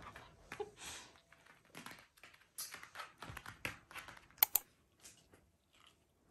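A dog's claws clicking and scratching on the floor as it moves about: an irregular run of short taps, with two sharp, louder clicks about four and a half seconds in.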